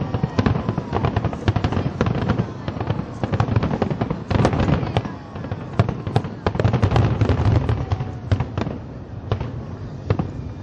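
Aerial fireworks shells bursting in a dense barrage of bangs and crackles over a low rumble, thinning out near the end.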